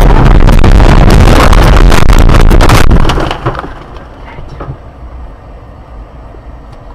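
Car crash picked up by an in-car camera: loud, overloaded crunching with many sharp cracks that stops abruptly about three seconds in. A low rumble and a few faint knocks follow.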